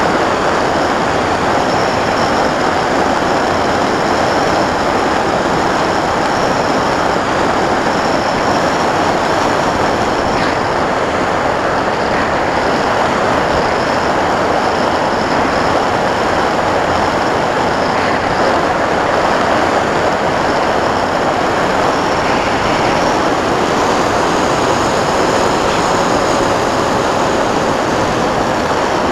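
Sky Cruiser 2400 radio-controlled model plane in flight, heard from a camera mounted on the plane: a steady loud rush of airflow and propeller noise with a faint high whine.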